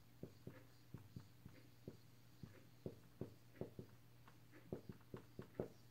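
Marker pen writing on a whiteboard: faint, irregular taps and scratches, a few strokes a second, over a faint steady low hum.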